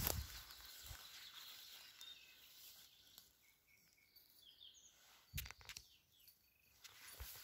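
Quiet woodland: faint bird chirps in the middle, and footsteps rustling through grass that fade out at the start and return briefly about five seconds in.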